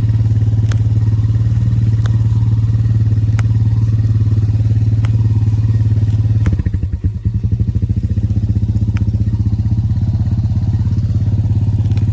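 Four-wheeler (ATV) engine running steadily with a low hum, with a few sharp ticks over it. About halfway through the engine note changes and wavers briefly, then runs steady again.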